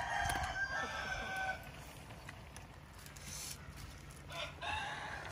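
Rooster crowing: one long crow in the first second and a half, and another beginning near the end.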